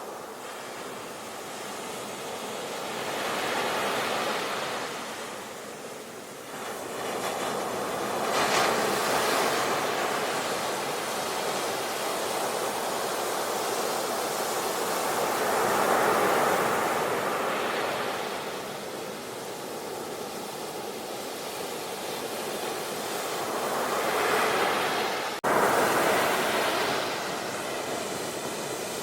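Ocean surf on a beach: waves washing in and out, the rush of water swelling and easing every few seconds. The sound cuts out for an instant about 25 seconds in.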